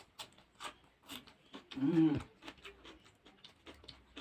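Close-up chewing of raw cucumber: irregular crisp crunching and wet mouth clicks, with a brief hummed "hmm" about two seconds in.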